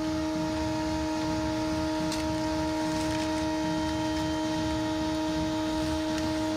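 A steady hum made of several fixed tones over a low rumble, with faint light taps about two and three seconds in.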